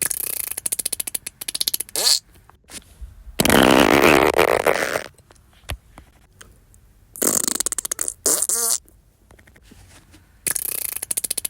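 A series of fart sound effects with short pauses between them. It opens with a rapid sputtering one, followed by a long, loud, raspy one. Then come more sputtering, a brief wavering squeaky one, and the opening sputter again near the end.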